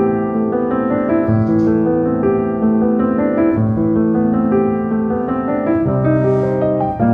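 Background piano music, notes and chords changing about once a second.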